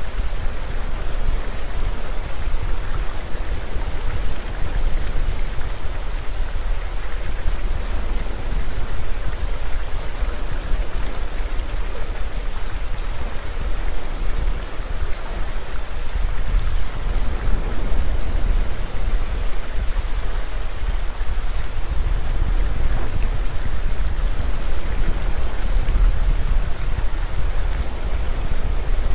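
Steady rushing water of a waterfall pouring into a pool.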